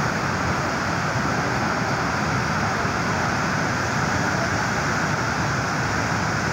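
Muddy floodwater rushing fast over rocks, a steady unbroken noise.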